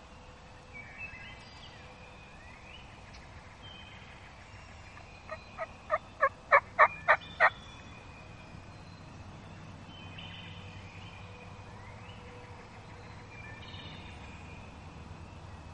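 Wild turkey yelps: a series of about eight short, pitched notes, about three a second, building in loudness over two seconds. Songbirds chirp faintly around them.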